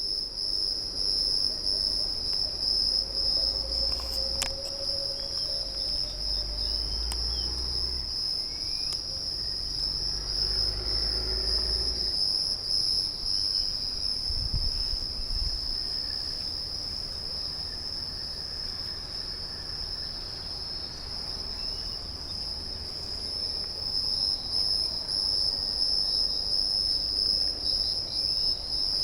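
Jungle insects at dusk keeping up a steady, high-pitched, unbroken buzzing chorus on one pitch, with a few faint short calls underneath.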